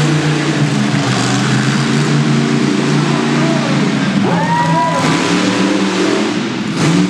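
Monster truck engine running loud and revving steadily while the truck drives over a crushed car, with a short bang near the end.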